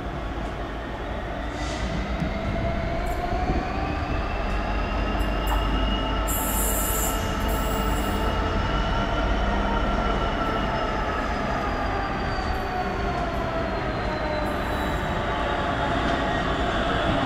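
DB Cargo Class 66 diesel locomotive, with its two-stroke EMD V12 engine, rumbling as it hauls a container freight train slowly through the station. Over it rises a high, wavering squeal of wagon wheels on curved track that slowly rises and falls in pitch. A brief hiss comes about six seconds in.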